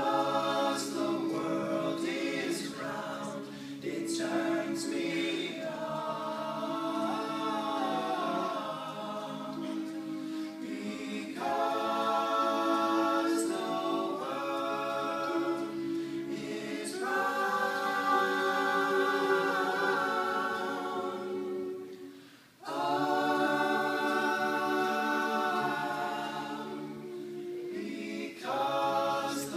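A vocal group singing a cappella in close harmony. The singing breaks off briefly about three-quarters of the way through and then comes back in.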